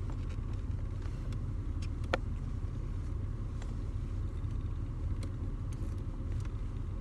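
Steady low car rumble heard inside the cabin, with a few light metallic clicks as a small Allen wrench works the set screws of an aluminum shift knob; one sharper click about two seconds in.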